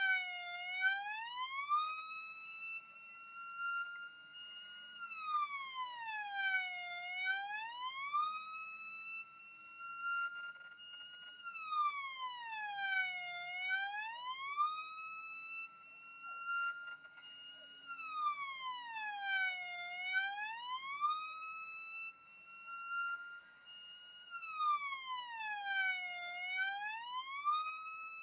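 Fire engine siren sounding a slow wail: the pitch climbs, holds high for a few seconds, then drops, the cycle repeating about every six and a half seconds.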